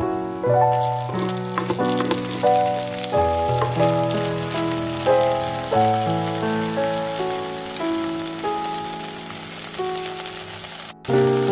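Vegetables sizzling as they fry in oil in a pan, the sizzle starting about a second in as chopped tomato and green onion go into the hot pan. Gentle piano music plays over it.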